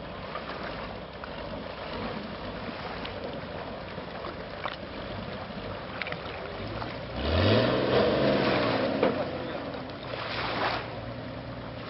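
Motor of a long-tail river boat running, revving up with a rising pitch about seven seconds in and running loud for a couple of seconds, then a shorter loud surge near the end as the boat comes in to the bank.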